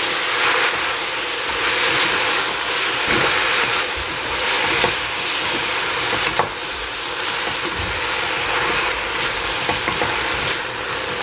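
Vegetables, greens, carrot and tofu, sizzling over high heat in a stainless steel pot as a wooden spatula stirs them, with a steady hiss and a few light knocks of the spatula against the pot.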